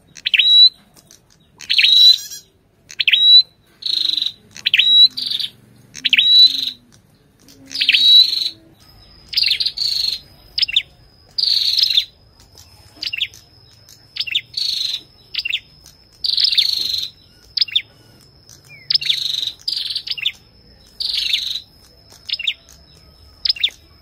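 Ashy tailorbird singing: short, sharp high notes repeated about once a second. The first notes each end in a quick upward flick, and later the notes come more unevenly. From about nine seconds in, a thin steady high tone runs beneath the song.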